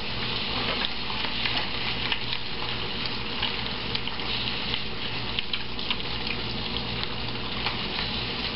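Strips of turkey bacon frying in a skillet: a steady sizzle with scattered small crackling pops.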